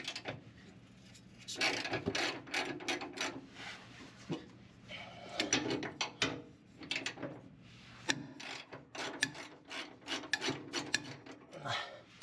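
Half-inch-drive ratchet clicking in several quick runs with short pauses between, as bolts holding the driveshaft are backed out.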